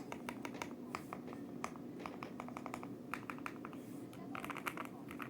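Typing on a mechanical keyboard with Gateron Oil King linear switches: irregular keystrokes throughout, quickening into a fast run near the end.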